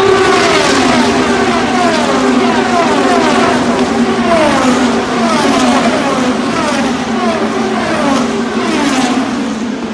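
The IndyCar field's 2.2-litre twin-turbo V6 engines go past one after another. Each car's note falls in pitch as it passes, over a steady engine drone.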